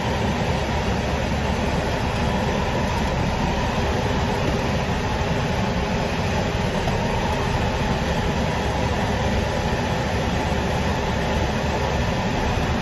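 Steady noise inside a car cabin while driving: engine and road rumble mixed with the air conditioning blowing.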